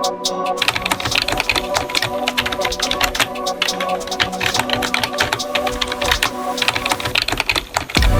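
Background music with steady sustained tones, over rapid, dense clicking that starts about half a second in and stops shortly before the end.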